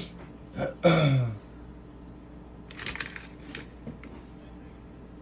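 A short vocal murmur with a falling pitch about a second in, then small plastic Lego pieces clicking and rattling as they are handled, around the three-second mark.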